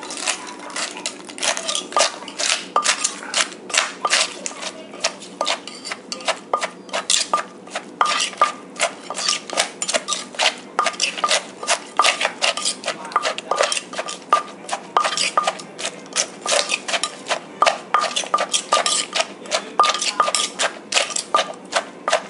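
Papaya salad being pounded in a mortar with a wooden pestle while a metal spoon turns it: steady knocks about three a second, with the clink of the spoon.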